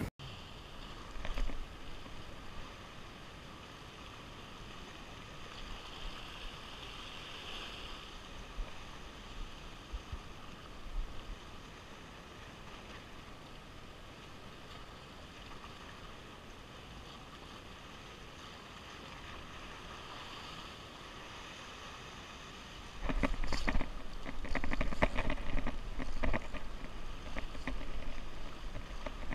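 Sea washing against rocks below, a steady soft hiss with a few faint clicks. From about 23 seconds in it grows louder, with wind rumbling on the microphone and scattered knocks.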